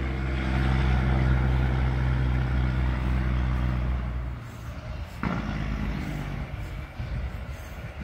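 Grain semi truck's diesel engine running with a steady low drone that cuts off about four seconds in. A brief falling squeal follows about a second later, then lower road noise from trucks on the highway.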